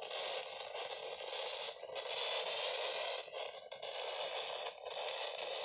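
Radio static: a steady hiss from a radio with no station coming through, dipping briefly a few times.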